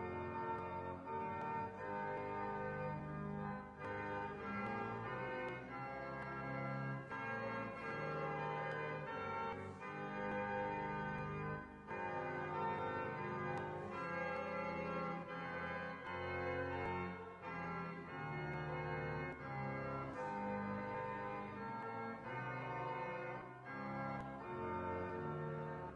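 Organ playing a slow hymn in sustained chords as offertory music.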